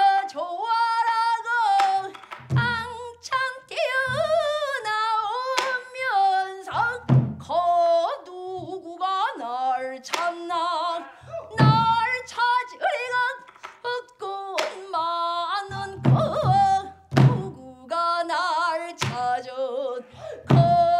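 Female pansori singer singing a full-voiced line with heavy vibrato, a few words at a time, punctuated every few seconds by deep strokes of a buk barrel drum, with a quick cluster of strokes about 16 seconds in.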